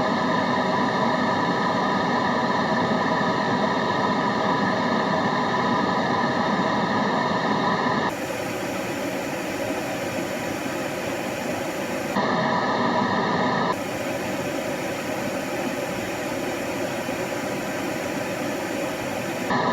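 Steady white-noise track, an even hiss with faint steady tones in it, that switches abruptly to a slightly quieter, different texture about eight seconds in, back about four seconds later, over again a second and a half after that, and back near the end.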